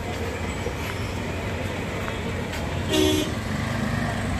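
Steady low rumble of road traffic, with one short vehicle horn honk about three seconds in.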